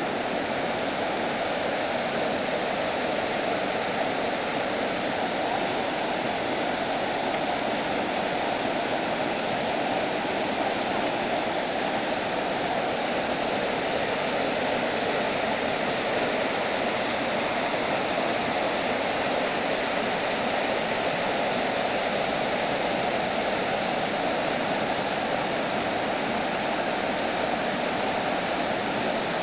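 Waterfall rushing steadily, the even roar of falling water at a constant level throughout.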